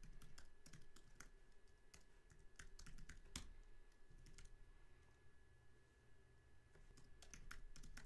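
Faint typing on a computer keyboard: irregular key clicks in short runs, with a pause of about two seconds past the middle before the clicks pick up again.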